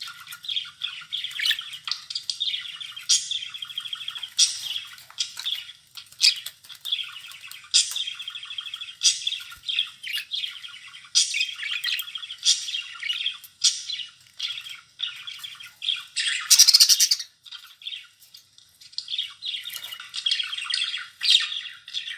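Budgerigars chattering and warbling continuously, with many short sharp chirps and one loud harsh squawk about three-quarters of the way through.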